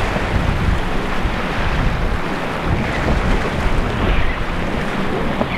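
Wind buffeting the microphone over the steady rush of waves and surf at an ocean inlet.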